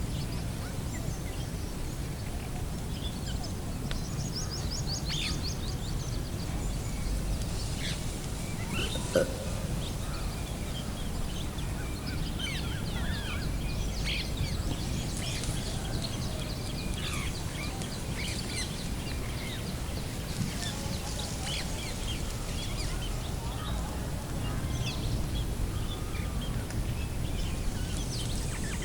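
Many small birds chirping and calling, with a rapid trill a few seconds in, over a steady low rumble. A single sharp click about nine seconds in.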